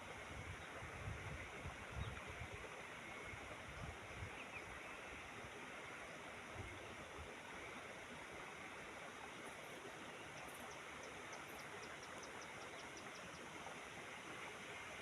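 Steady rushing noise of flowing water. A few low thumps come in the first few seconds, and a quick run of faint high ticks near the end.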